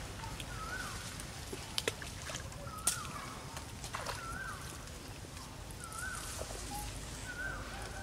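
Macaques splashing in a muddy pond, with a few sharp clicks and splashes about two, three and four seconds in. A short rising-and-falling animal call repeats about every second and a half over a low steady rumble.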